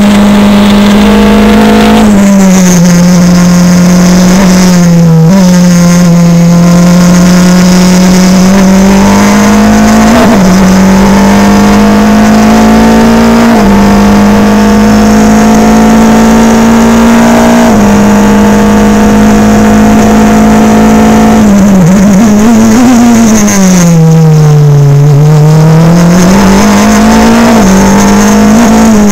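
Formula Renault racing car's engine at high revs, heard loud from onboard. Its pitch climbs slowly along the straights with a few abrupt steps. A little past the middle it drops to its lowest as the car slows for a corner, then rises again as the car accelerates out.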